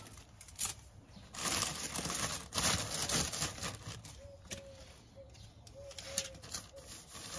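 Plastic packaging and paper rustling and crinkling in short bursts as bagged clothing is handled. Faint bird calls come in around the middle.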